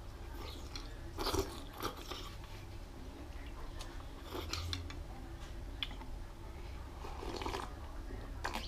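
A person eating close to the microphone: chewing, with a few short slurps and sips of soup from a bowl.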